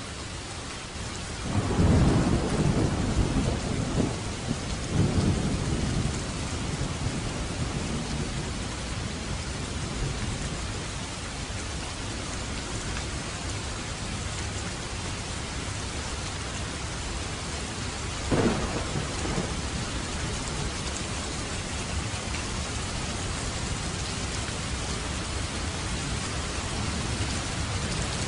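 Steady rain with thunder: a rolling rumble starts about two seconds in, with several cracks over the next few seconds, and a shorter thunderclap comes about two-thirds of the way through.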